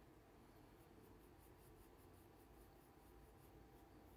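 Faint scratching of a colored pencil on paper in short back-and-forth shading strokes, a few strokes a second.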